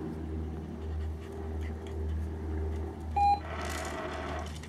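Manners Minder remote treat dispenser giving one short electronic beep about three seconds in, followed by about a second of whirring and rattling as it releases treats. A steady low hum runs underneath.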